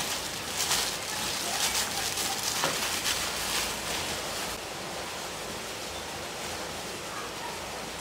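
Plastic bag crinkling and cloth rustling as clothes are packed into a duffel bag, over a steady hiss of heavy rain; the handling stops about four and a half seconds in, leaving the rain alone.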